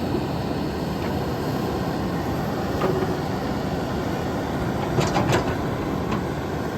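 John Deere 310K backhoe's diesel engine running steadily, with a few sharp metallic clanks about three seconds in and a cluster of them about five seconds in.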